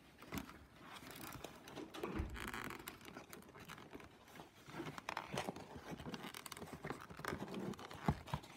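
Cardboard pop-up scenery of an advent calendar being handled and pressed into place by hand: irregular rustling, scratching and small taps of card against card.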